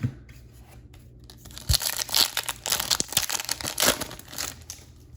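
A Bowman baseball card pack's wrapper being torn open and crinkled. It starts about a second and a half in and goes on in crackling rips for about three seconds.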